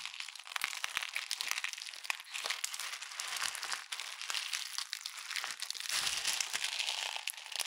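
Clear slime loaded with plastic fuse beads being squeezed and kneaded by hand in a plastic bowl: a dense, crunchy crackling of many small clicks as the beads rub and knock together in the slime.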